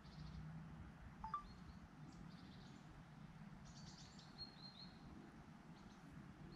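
Faint birdsong from small birds: scattered short chirps and trills, with a brighter run of chirps around four seconds in, over a low steady background rumble.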